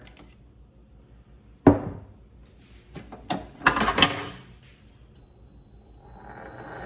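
A few hard knocks and clicks of metal being handled, then the mini lathe starting: a high steady whine comes in about five seconds in, and the running noise of the motor and spindle builds near the end.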